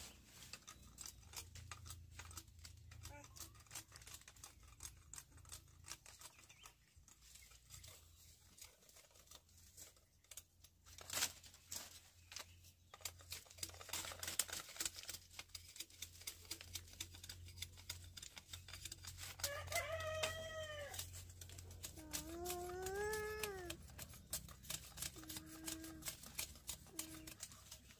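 Irregular clicks, knocks and rustling, with one louder knock about eleven seconds in. Near the end an animal calls several times, short arched cries.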